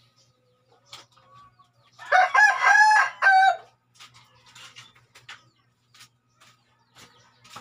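A rooster crows once, about two seconds in, a single call of about a second and a half, among a few faint clicks.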